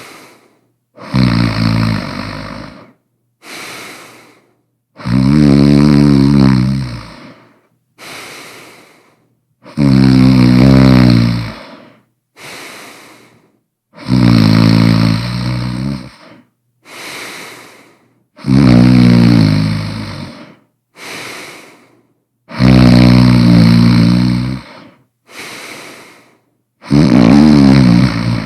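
A person snoring loudly and rhythmically: seven long snores about every four seconds, with a shorter, quieter breath between each pair.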